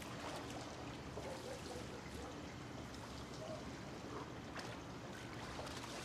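Faint sloshing and small splashes of pool water around a swimmer.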